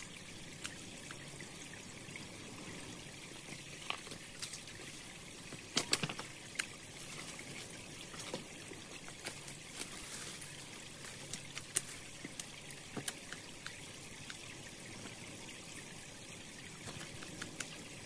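Stream water trickling steadily, with scattered sharp snips and rustles of hand pruning shears cutting back brush on the bank.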